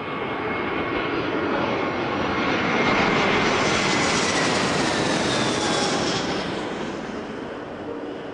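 Jet aircraft engine noise that swells to a peak about halfway through and then fades away, with a whine that slowly falls in pitch, like a jet passing by.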